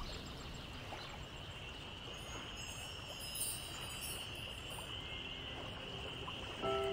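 A soft, steady ambient hiss with a faint cluster of high tinkling chime notes in the middle, like wind chimes; clear musical notes come in near the end.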